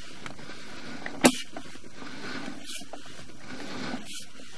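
Sewer inspection camera's push cable being pulled back out of the line in steady strokes, a brief rasp about every second and a half over a constant hiss, with one sharp click a little over a second in.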